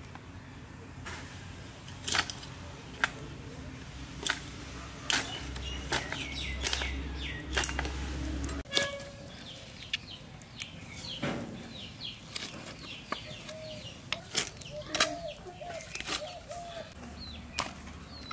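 A plucked chicken being cut apart on an upright boti blade: sharp cracks and snaps about once a second as joints and bone give way. Birds call faintly in the background.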